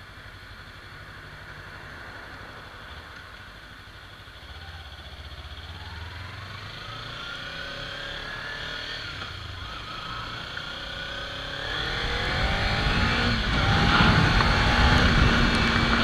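Kawasaki Ninja 300's parallel-twin engine while riding: running quietly at first, then accelerating, its pitch rising several times as it revs up, and growing much louder in the last few seconds.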